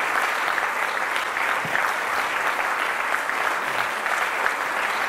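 Audience applauding steadily: many hands clapping in an even, dense patter.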